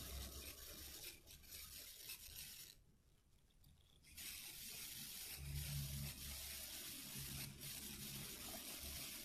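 Hands kneading and squeezing sticky slime after boric-acid water has been added to loosen it, making faint wet squishing and rubbing. It breaks off briefly about three seconds in.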